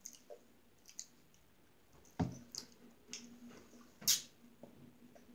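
Plastic water bottle being handled and drunk from: scattered light clicks, one sharp knock a little over two seconds in, and a short crinkling rustle about four seconds in as the bottle is tipped up.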